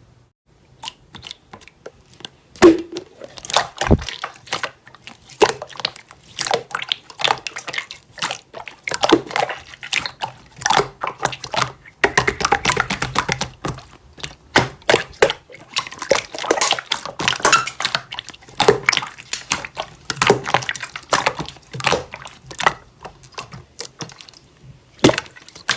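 Slime being worked by hand: an irregular run of wet clicks, pops and squelches.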